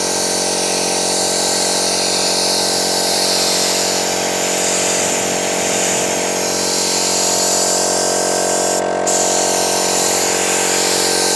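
Handheld paint spray gun spraying lacquer onto wooden stair treads: a steady hum under the hiss of the spray, the hiss breaking off for a moment about nine seconds in.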